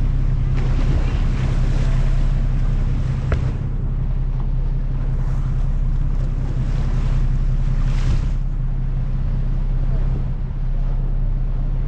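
Boat engine running with a steady low drone, under the rush of wind on the microphone and water along the hull.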